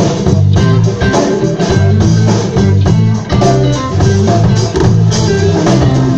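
Blues band playing live without vocals: guitar to the fore over a walking bass line and a steady drum beat.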